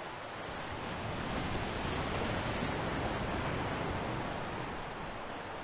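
Steady rushing noise of wind and sea, swelling gently in the middle and easing off again.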